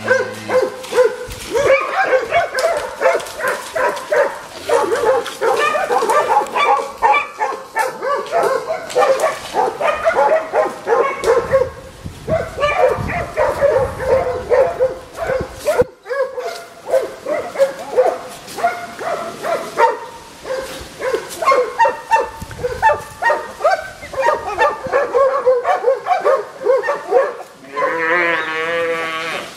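A pack of dogs barking continuously in short, rapid calls. Near the end there is one longer, wavering cry.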